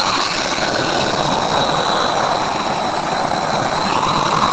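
2008 Hoover Constellation canister vacuum running steadily: an even rush of air with a thin high whine. Its cracked turbo nozzle is not pushed on tight, which slows the turbine brush.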